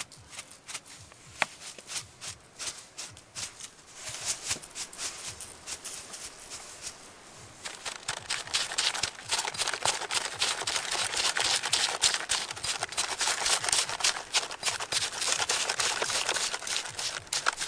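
Stone pestle grinding salt, chili and onion in a stone mortar: a few scattered clicks at first, then a dense, gritty crunching and scraping that grows louder about eight seconds in.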